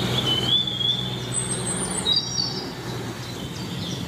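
Birds chirping and whistling in short gliding notes over a steady low hum, in open farmland ambience.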